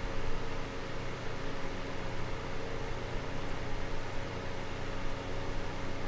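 Small desk fan running steadily: an even rush of air with a low motor hum underneath.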